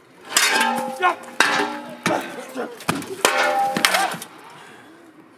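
Metal snow shovels scraping across stone paving through scattered corn kernels, in four strokes of about a second each with a metallic ring under the scrape.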